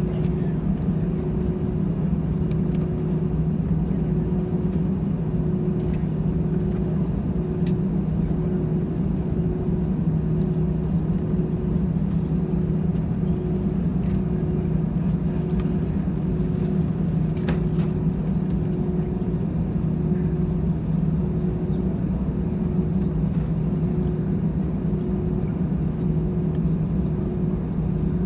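Jet airliner heard from inside the passenger cabin: a steady, even engine drone and rumble with a faint hum pulsing about once a second.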